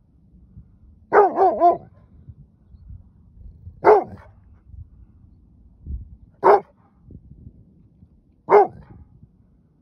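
Rhodesian ridgeback barking at a coyote pack: a quick run of three barks about a second in, then single barks every two seconds or so.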